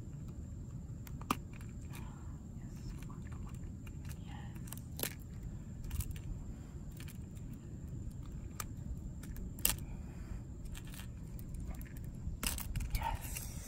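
Scattered sharp metallic clicks and jingles of fishing pliers and a topwater lure's treble hooks being worked out of a fish's mouth, with a denser cluster near the end, over steady low background noise.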